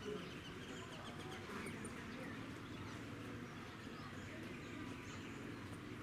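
Outdoor ambience: birds chirping here and there over a steady low background.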